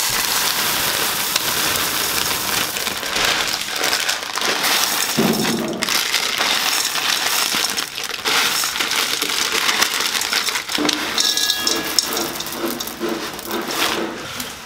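Dry puffed rice, crushed instant noodles and roasted chickpeas poured from plastic packets into a steel pot, a steady dense patter of small hard pieces rattling against the metal.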